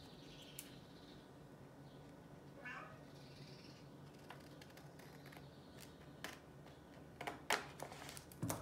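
Scissors cutting into a folded paper sheet: a faint rasp of the blades through the paper, then several sharp clicks near the end. A brief high squeak comes about three seconds in.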